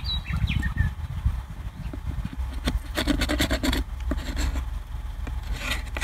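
A tool scraping wooden beehive parts clean, with rasping strokes in a quick run about three seconds in and again near the end.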